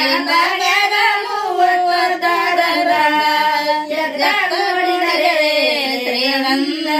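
Women singing a Kannada devotional folk song to Mahadeva together, unaccompanied, drawing out a long sliding melodic line without a break.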